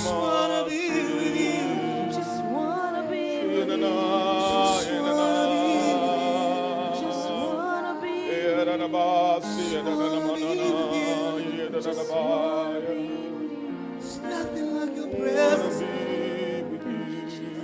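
Live worship music: a voice sings a wavering, melismatic melody with vibrato over sustained held chords, fading slightly near the end.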